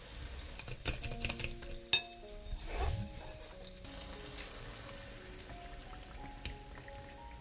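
Tomato slices and garlic frying in olive oil in a non-stick pan, a steady sizzle. A few light clicks come about a second in, then a single ringing clink near two seconds.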